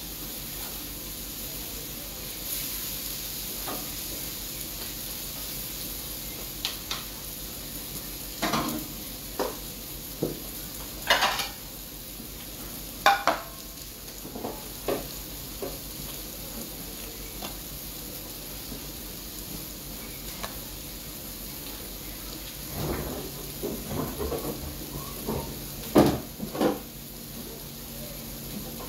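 Liver and onions frying in a pan, a steady sizzle, with scattered knocks and clatters of utensils and dishes; a plate is set down on the table, and the loudest clatter comes near the end.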